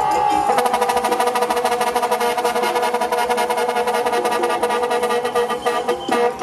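Truck air horns blasted in fast, even pulses, a steady chord of horn tones chopped many times a second in a rhythmic sam-cha pattern. It breaks off shortly before the end. In the first half second a falling siren wail fades out.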